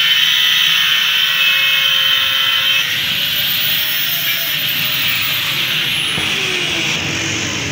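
Electric angle grinder grinding the steel of a motorcycle kick-start lever held in a vise. About five seconds in it is lifted off the metal and its whine falls as it spins down.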